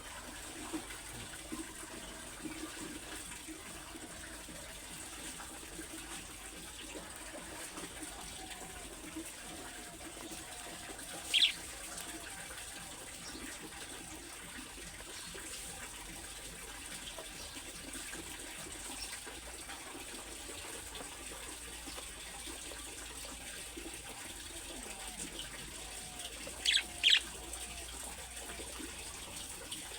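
Budgerigars chattering softly over a steady hiss, with one sharp high call about eleven seconds in and two more in quick succession near the end.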